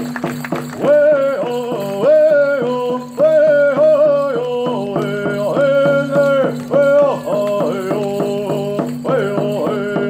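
Music for a hoop dance: a high melody with wavering, sliding pitch over a steady low drone.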